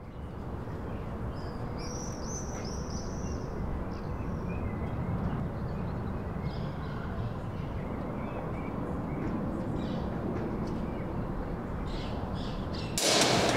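Small birds chirping in short bursts over a steady low rumble of outdoor ambience. Near the end a louder, noisier sound cuts in suddenly.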